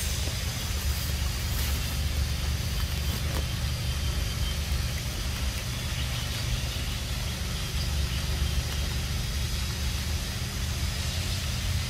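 A motor running steadily: an even, low hum with a faint hiss above it.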